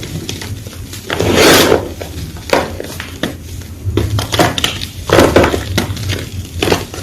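Fresh white gym chalk being crunched: irregular gritty crunches and crackles, with a long, loud crunch about a second and a half in and another strong one about five seconds in.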